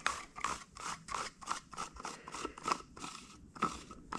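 Threaded lid of a 3D-printed plastic container being unscrewed by hand: the printed plastic threads rasp in quick short strokes, about five a second, with a louder knock near the end.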